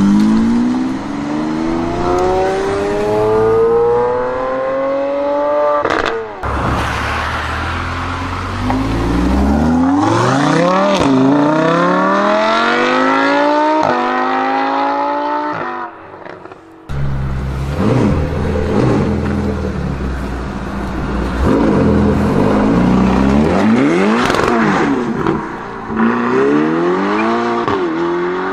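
Supercar engines accelerating hard through the gears. The engine note climbs steadily, drops sharply at each upshift, then climbs again, many times over, with a brief drop in level about sixteen seconds in.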